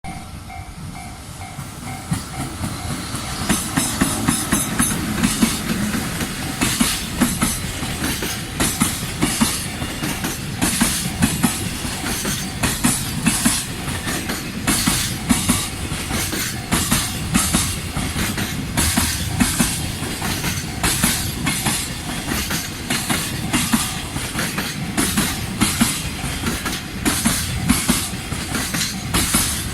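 Long freight train of 24 wagons behind an EF210 electric locomotive rolling slowly over a level crossing: steady clickety-clack of wheel sets over the rail joints, starting about three seconds in. A level-crossing warning bell rings steadily before the train arrives.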